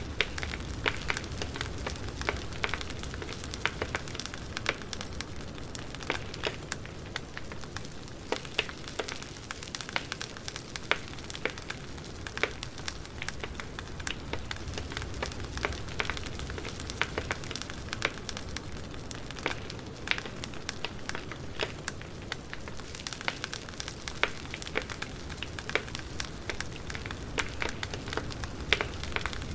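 Campfire crackling: irregular sharp pops and snaps over a steady low rush of burning wood.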